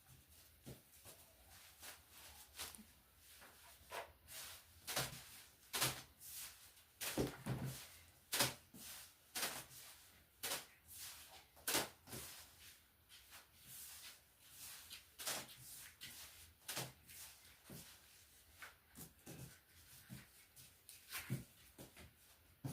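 Irregular knocks and clatters of hands working in a kitchen, about one or two a second, loudest and thickest in the middle.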